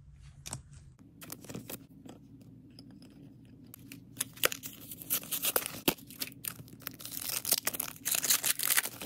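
Foil wrapper of a Disney Lorcana booster pack crinkling and tearing as it is opened, a dense crackling run through the second half, after a few light clicks of cards being set down.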